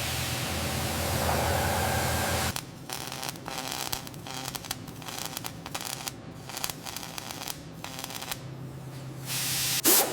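Hissing spray with a low hum for the first two and a half seconds, then, after an abrupt change, short irregular bursts of spray hiss, with a louder burst near the end.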